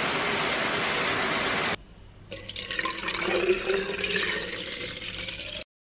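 Handheld shower head spraying water, a steady hiss that cuts off suddenly about two seconds in. After a short pause, water splashes and bubbles in a clear plastic bottle, stopping abruptly near the end.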